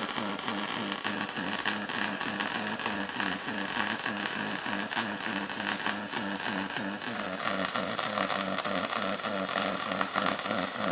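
Pulsed MIG welding arc laying a bead of 70-30 copper-nickel wire on copper-nickel plate: a steady buzzing hiss with a fast, even pulsing underneath. It cuts off abruptly at the very end as the arc is broken.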